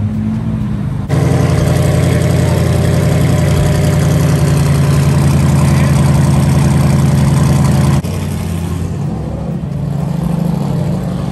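Aston Martin Vantage sports car engine running close to its exhaust: a loud, steady drone with no revving, starting abruptly about a second in. About eight seconds in it drops suddenly to a quieter engine note as the car moves off.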